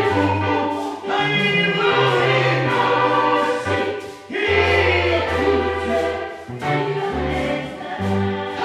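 Live gospel worship song: a lead singer and a group of singers singing through microphones, over held low bass notes that change every second or two.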